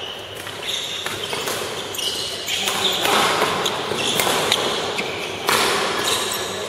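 Badminton rally: sharp racket strikes on the shuttlecock, the loudest about five and a half seconds in, with short squeaks of shoes on the court floor and voices in the background.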